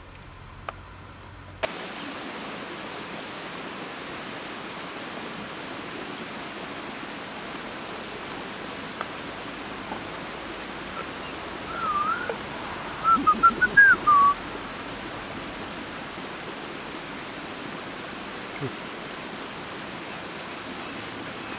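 Steady rushing of a stream, with a quick run of short, warbling, whistled chirps a little past halfway, the loudest sound.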